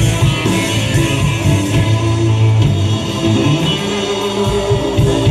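Live rock band playing, with electric guitar to the fore over drums.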